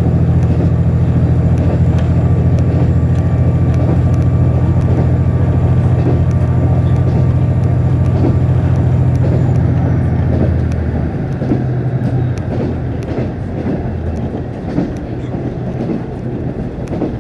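KiHa 48 diesel railcar heard from inside the cabin. The engine drones steadily under power, then about eleven seconds in it throttles back and the low drone drops away. Scattered sharp clicks of the wheels over the rail run throughout.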